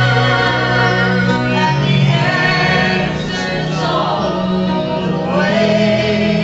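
Live gospel song: girls' voices singing into microphones over electric keyboard accompaniment, with held low notes that shift pitch twice.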